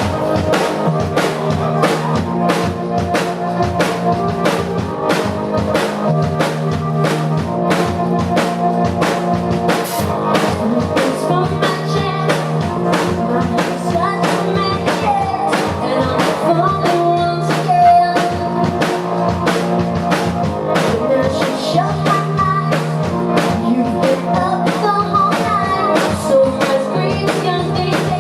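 Live rock band playing an instrumental passage: a drum kit keeps a steady beat under sustained bass and guitar notes.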